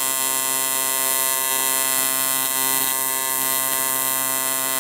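AC TIG welding arc buzzing steadily while tack welding cast aluminum: one continuous electric buzz made of many evenly spaced tones, with no breaks.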